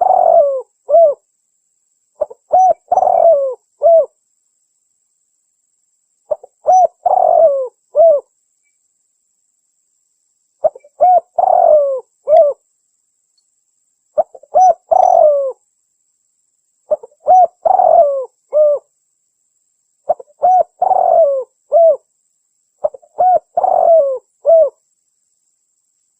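Spotted dove (tekukur) cooing call played as a bird lure, repeating a three-part coo phrase about every three to four seconds.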